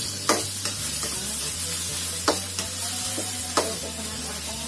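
Ground spice paste with chillies and bay leaves sizzling as it is stir-fried in a small metal wok, with a steady frying hiss. Three sharp knocks of the metal spatula against the pan: about a third of a second in, past two seconds, and at about three and a half seconds.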